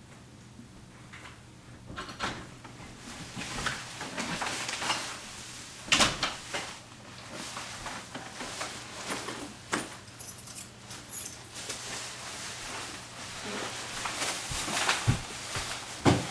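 A door opening and closing and plastic shopping bags rustling as they are carried in and set down, with several sharp knocks, the loudest about six seconds in.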